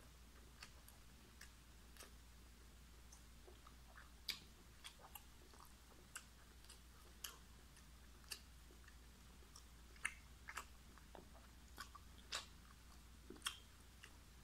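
A person chewing roast chicken close to the microphone: quiet, irregular mouth clicks and smacks, about one a second, a few of them sharper and louder.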